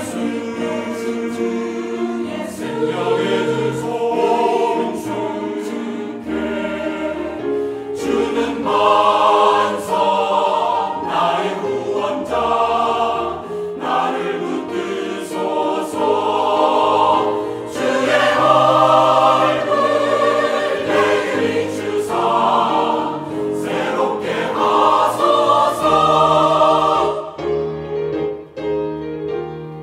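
Mixed church choir singing a hymn in Korean with piano accompaniment, swelling louder in several phrases; near the end the voices stop and the piano plays on alone.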